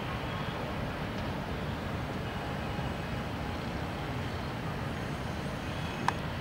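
Steady low background rumble, with a single sharp click about six seconds in.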